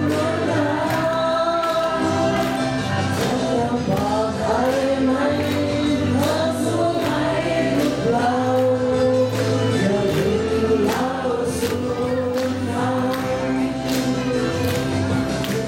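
A solo voice singing a song into a microphone, over backing music with a steady beat.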